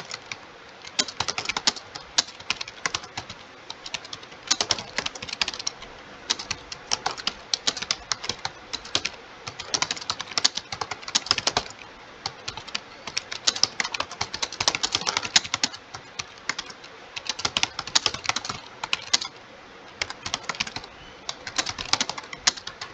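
Fast typing on a computer keyboard: dense runs of key clicks in bursts a second or two long, broken by short pauses.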